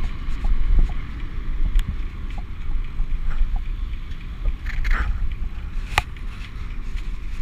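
Wind buffeting the microphone and a steady low rumble from a bicycle rolling along a paved path, with scattered light clicks and rattles from the bike; one sharper click about six seconds in.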